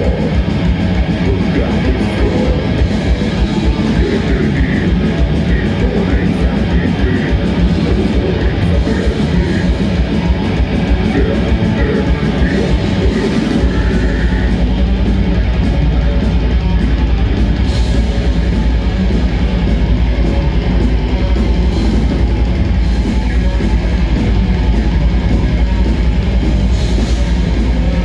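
Death metal band playing live and loud, with heavily distorted electric guitars, bass, drums and growled vocals. About halfway through, the bottom end thickens into a dense, steady rumble.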